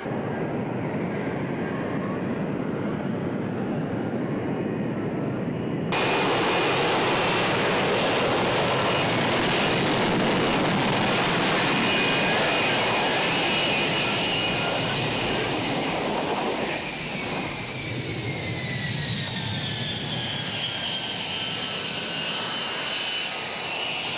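An F-35B's F135 jet engine and shaft-driven lift fan running at hover power during a vertical landing: a steady jet noise with a high whine on top. The sound jumps louder about six seconds in. In the last several seconds the whine falls in pitch as the engine winds down after touchdown.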